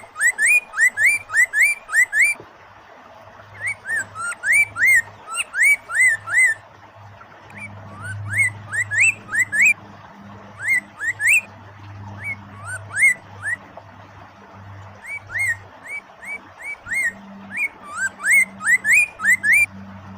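Poksay mandarin (Chinese hwamei) singing: runs of quick, rising whistled notes, several a second, in phrases broken by short pauses, over a faint steady low hum.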